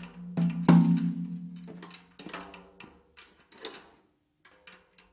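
Background film music with percussion hits over a held low note, thinning out and fading almost to nothing near the end.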